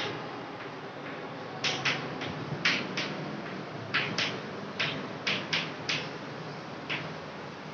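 Chalk writing on a chalkboard: a quick, irregular run of short, sharp taps and scratches as each letter is stroked on.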